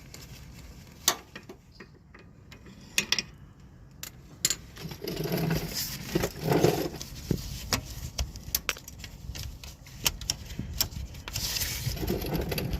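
Metal hand tools clicking and rattling: a socket on a swivel and long extension working the 13 mm nut off the starter's power-wire terminal. Scattered sharp clicks and knocks, with longer rattling stretches around the middle and near the end.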